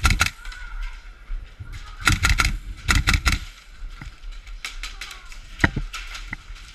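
Airsoft guns firing rapid bursts of shots: three quick bursts in the first three and a half seconds, then a few scattered single cracks.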